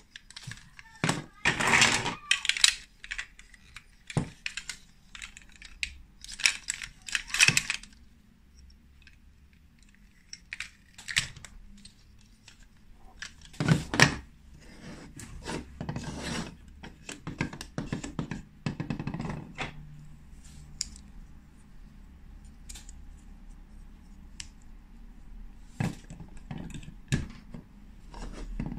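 Hard plastic Lego Duplo pieces handled and pressed together on a table: irregular clicks, knocks and rattles in short clusters with pauses between, busiest at the start and thinning out toward the end.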